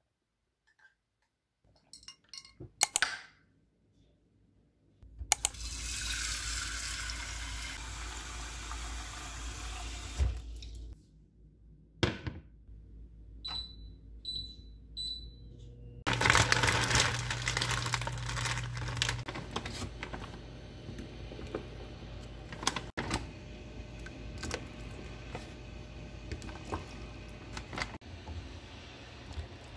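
A few sharp knocks about three seconds in, then water running from a kitchen tap for about six seconds. An induction cooktop's touch controls beep three times, and the hob then runs with a low hum under clatter and splashing from a pot of water.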